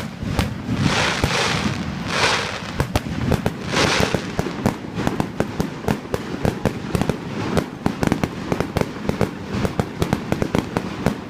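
Fireworks display: several hissing swells of aerial shells bursting, then from about three seconds in a dense run of rapid sharp crackling pops, many a second.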